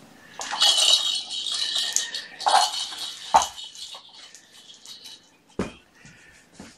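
Rustling and light rattling as cat-room things are handled on a carpeted floor, with a sharp knock about three and a half seconds in. A soft thump follows about five and a half seconds in as a round fabric cat bed is set down.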